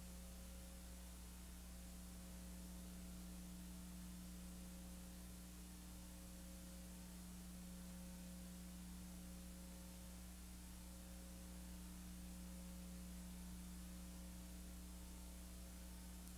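Faint, steady mains hum with a higher overtone over an even hiss, unchanging and with no other sound: the noise floor of the recording equipment on a blank stretch of recording.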